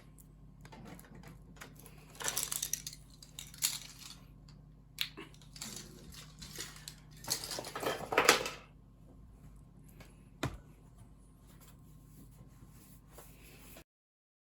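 Handling noises from working on an opened laptop: scattered rustling bursts and light taps, with one sharp click about ten and a half seconds in. The sound cuts off suddenly near the end.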